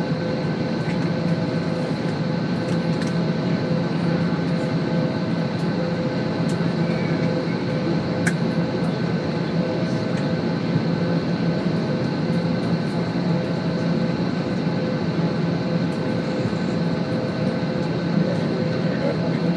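Steady cabin drone inside an Airbus A320 airliner on the ground before takeoff, with a few held tones over the noise and scattered faint clicks.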